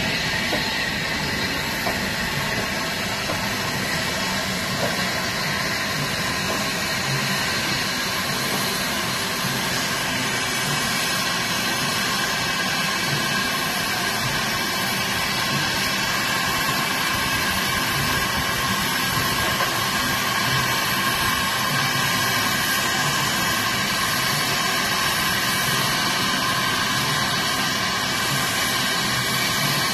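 USATC S160 steam locomotive No. 5820 venting steam with a loud, steady hiss that holds unchanged throughout.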